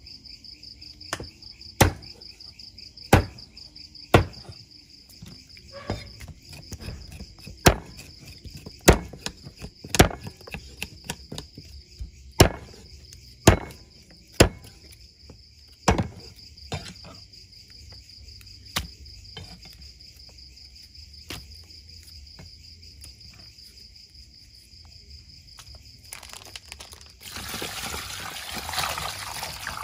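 Meat cleaver chopping raw chicken on a round wooden chopping block: sharp, irregular chops roughly a second apart, fewer in the second half. A steady high insect trill runs underneath, and near the end water runs into a steel bowl as ginger roots are washed by hand.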